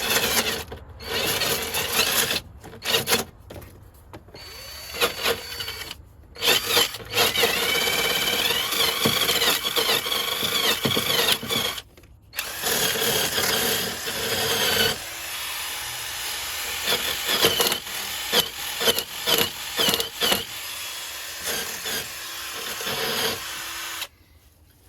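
Power drill spinning a brush against rusted bolt heads to scour off the rust, run in several bursts with short pauses. A wavering squeal rises from the brush on the metal partway through, and the drill stops near the end.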